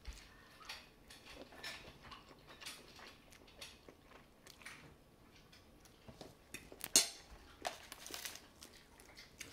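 Close mouth sounds of eating jajangmyeon noodles: slurping and chewing with many small wet clicks, and one sharper click about seven seconds in.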